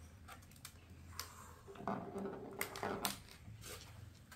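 Faint scattered clicks and taps of small fishing tackle being handled: nylon line and a float being fitted into the notches of a foam rig winder.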